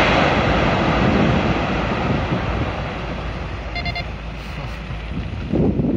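Quarry rock blast: a loud rumble, strongest at the start, that rolls on and slowly fades over several seconds. A brief high beep sounds about four seconds in.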